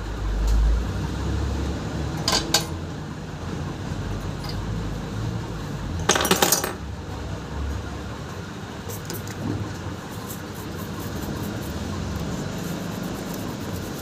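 Small metal tools and parts clicking and clinking against the workbench during a phone charging-port repair, a couple of sharp clicks at first and a louder cluster about six seconds in. Faint scratchy rubbing near the end, over a steady low rumble.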